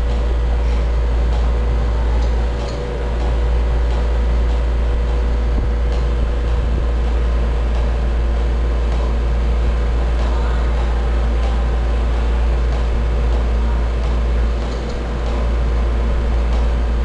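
Steady low mechanical hum from the medical equipment around an intubated newborn, with a faint steady tone above it and two brief dips in level.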